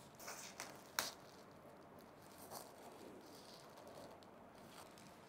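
Faint rustling of a thin protective wrapping sheet as a boxed board is handled and lifted out, with one sharp click about a second in.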